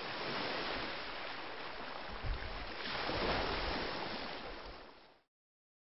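Rushing water like surf, fading in, swelling about three seconds in, then fading and cutting off near the end.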